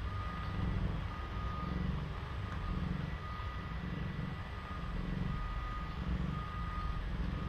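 Nursing mother cat purring, a low rumble that swells and fades about once a second, with a faint high electronic beep sounding on and off over it.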